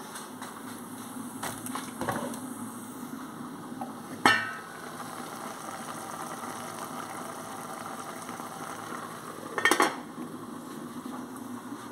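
Metal lid of a frying pan clanks as it is lifted off about four seconds in, then rattles several times as it is set back on near the end, over the steady hiss of food simmering in the pan.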